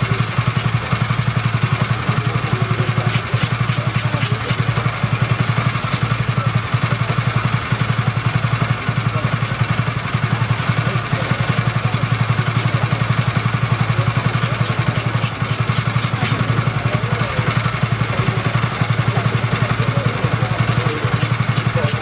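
Electric fish scaler running with a steady, rapidly pulsing motor hum while its head scrapes the scales off a grouper, giving scattered scratchy ticks.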